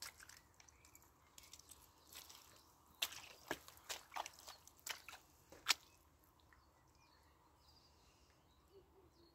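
A quick run of about six sharp small clicks and knocks over a faint outdoor background, the last one the loudest.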